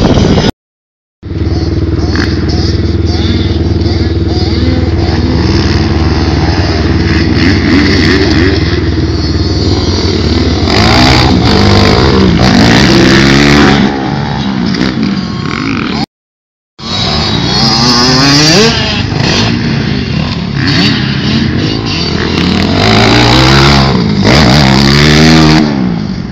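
Dirt bike engine revving up and down again and again, its pitch rising and falling as it goes round the motocross track, over a steady low drone in the first half. The sound cuts out completely twice, briefly, near the start and about midway.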